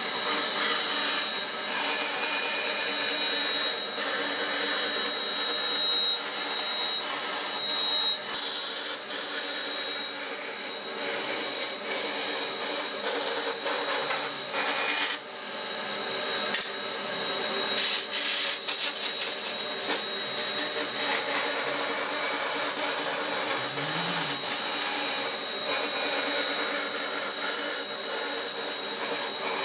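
Band saw running and cutting a curve through a thick wooden board, the blade hissing through the wood over a steady high whine and the motor's hum.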